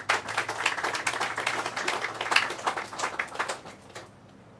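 Audience applauding with many hand claps, dying away about four seconds in.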